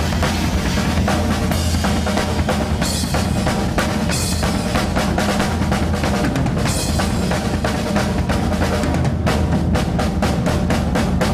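Big taiko drum and drum kit played together in a fast, dense rhythm, with snare, kick drum and the taiko's deep resonance underneath. Near the end the strokes fall into rapid, even hits.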